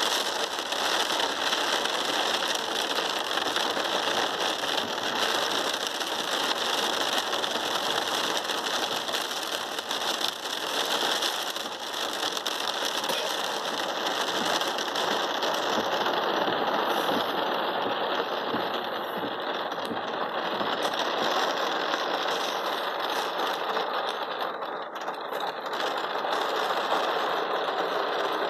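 Heavy rain pelting a car's roof and windscreen, heard from inside the car: a loud, steady, dense patter of drops.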